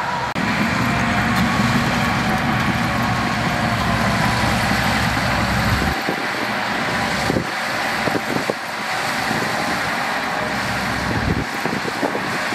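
Dump truck's diesel engine running while the hydraulic hoist tips the bed higher and the load of soil slides out, with scattered knocks of falling earth and clods.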